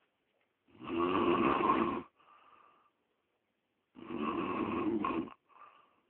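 A man snoring loudly in his sleep: two long, loud snores about three seconds apart, each followed by a short, much fainter breath sound.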